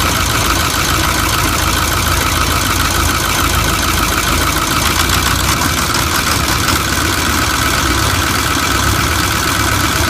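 Ford 6.4 Powerstroke V8 turbodiesel engine idling steadily.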